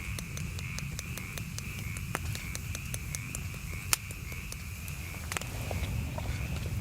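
Wood campfire crackling with scattered sharp pops, one louder pop about four seconds in. Behind it runs a steady, high pulsing animal chorus, about three pulses a second.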